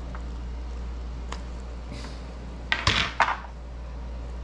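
Kitchenware clattering: a few light clicks, then a brief loud clatter of hard items against a dish or pan about three seconds in, over a steady low hum.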